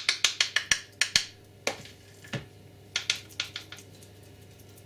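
A fork clicking and tapping as a suet-based bird food mix is scooped and packed into a half coconut shell. The taps come in a quick cluster over the first second or so, then a few scattered ones, and stop about three-quarters of the way through.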